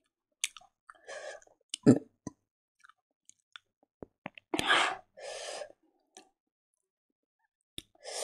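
Close-miked mouth sounds and breaths between bites: a few short breaths or sniffs and scattered small clicks, with one soft knock about two seconds in.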